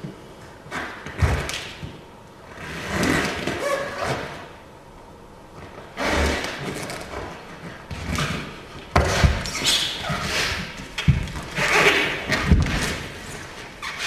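A dancer's feet and hands thudding on a studio dance floor, irregular thuds at uneven intervals with scuffing and sliding noises between them, the thuds coming thicker and louder in the second half.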